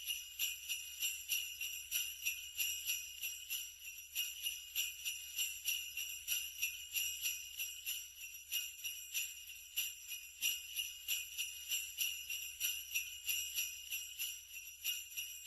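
Sleigh bells shaken in a steady rhythm, about two shakes a second, giving a continuous bright jingle.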